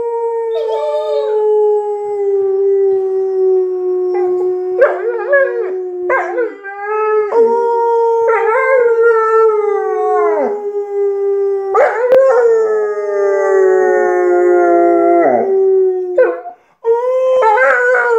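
Weimaraner howling in long, slowly falling notes, one after another, with a man howling along with it. The howls break off briefly near the end, then start again.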